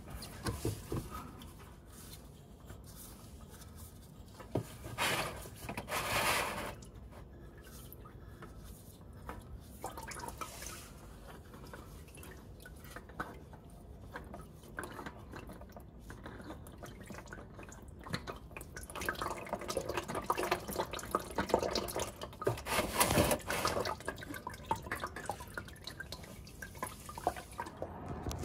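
Engine oil dripping and trickling from a Toyota RAV4's cartridge oil filter housing as the filter canister is spun off by hand, mixed with irregular handling and scraping noises; the busiest stretch comes about two-thirds of the way in.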